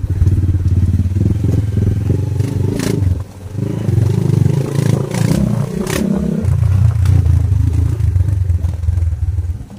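Small motorcycle engine running under load on a rocky dirt track. Its note drops for a few seconds a little after the start, while the bike rattles and gives a few sharp knocks over the rough ground, then picks up again.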